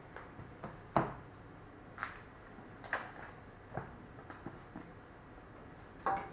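Handling sounds as paper instruction booklets are picked up and gathered off a stone countertop: a series of short knocks and taps about a second apart, the sharpest about a second in and another near the end.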